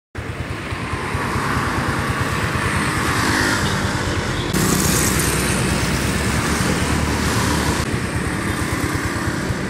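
Road traffic passing: motor vehicles, motorcycles among them, giving a steady engine hum and tyre hiss that grows a little louder and brighter about halfway through.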